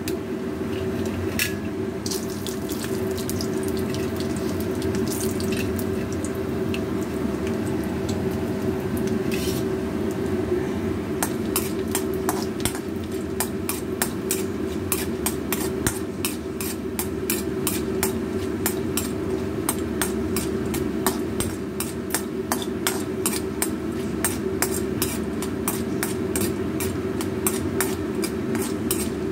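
Oil sizzling in a steel kadai as peanuts, chana dal and mustard seeds fry, with a metal ladle scraping and stirring, over a steady hum. From about eleven seconds in, rapid crackling, many pops a second: mustard seeds popping in the hot oil.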